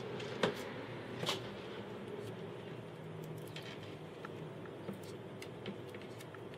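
Quiet handling noise as hands tie a cord onto a small caster-wheeled model trolley: a few light clicks and taps, two of them sharper within the first second and a half, over faint room hiss.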